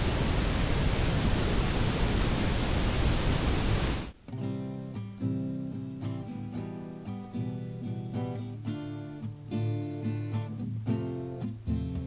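A steady, even rush of noise that cuts off abruptly about four seconds in, followed by background music with plucked guitar.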